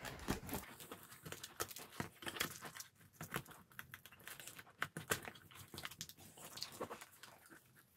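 Handling noise of a padded fabric recorder bag as a Zoom F6 recorder is slid into it and the flaps are worked: irregular rustling, scraping and small clicks and knocks.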